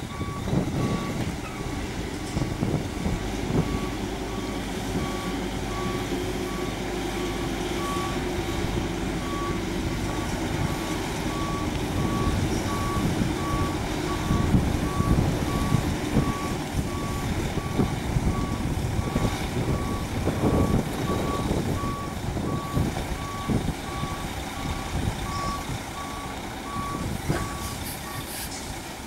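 Multilift cane-bin truck reversing: its reversing alarm beeps steadily about once a second over the low rumble of its engine.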